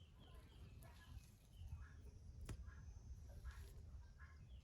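Faint bird chirping: short, falling notes repeated every half second or so over near silence, with a single sharp click about halfway through.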